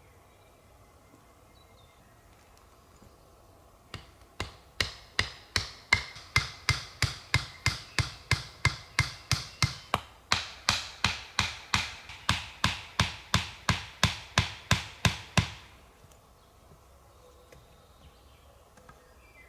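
Repeated sharp knocks at about three strikes a second for some eleven seconds, with a brief break about ten seconds in, like a tool hammering or chopping at camp.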